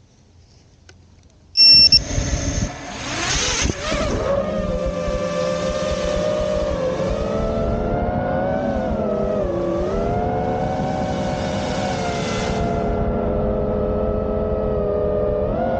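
A 5-inch FPV quadcopter's brushless motors and propellers, heard from the Insta360 X2 camera bolted onto the quad. Quiet at first, the motors spin up suddenly about a second and a half in as it takes off, then settle into a steady whine of several tones that rises and dips with the throttle.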